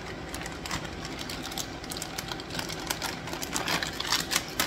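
Metallic anti-static bag crinkling and rustling as it is handled and pulled open, an irregular run of crackles that gets busier and louder near the end.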